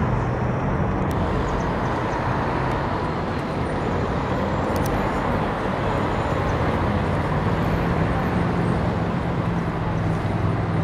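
Steady city road traffic noise, with a low engine drone that grows stronger near the end.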